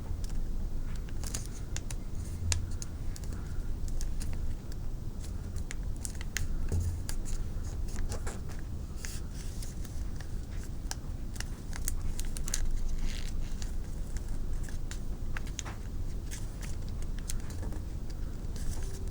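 Paper being folded and creased by hand, with scattered crinkles and small clicks over a low steady hum.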